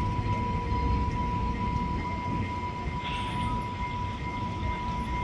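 Amtrak Cascades Talgo 8 trainset pulling out and rolling away: a low rumble of the train running, with a steady high-pitched tone over it.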